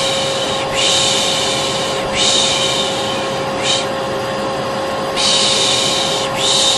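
Vacuum cleaner running steadily with a constant hum, overlaid by a person's repeated 'shh' shushing, about six hissing shushes of roughly a second each. This is the 'piş piş' shushing used to soothe a baby.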